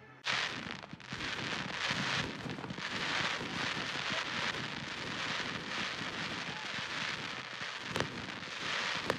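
Fireworks display: a dense, pulsing crackle and hiss from glittering gold shells bursting overhead. A sharp bang comes about eight seconds in and another near the end.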